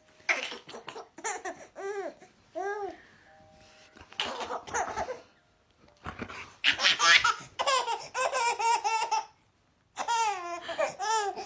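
A baby laughing in several rounds of repeated high giggles, with short pauses between them.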